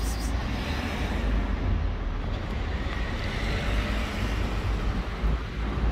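Road traffic noise: a vehicle passing, swelling and then fading over a few seconds, over a steady low rumble of wind on the microphone.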